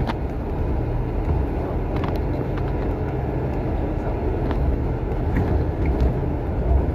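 Bus on the move: a steady low engine and road rumble with a few scattered light clicks and rattles.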